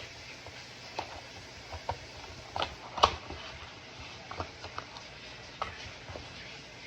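Box and packaging of a Rubik's speed cube being opened and handled: scattered light clicks and rustles, the loudest about three seconds in, over a steady hiss.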